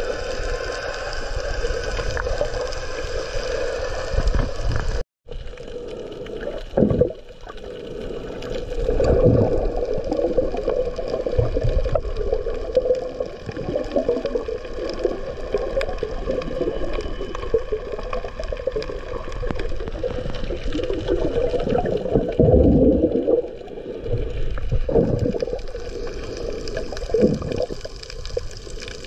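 Muffled underwater water noise picked up by a submerged camera: sloshing and gurgling over a steady hum, with louder bubbling surges every few seconds. The sound cuts out briefly about five seconds in.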